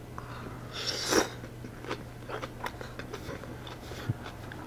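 A man chewing a mouthful of napa-cabbage kimchi wrapped around steamed pork belly: short, irregular mouth clicks, with one louder noisy bite about a second in.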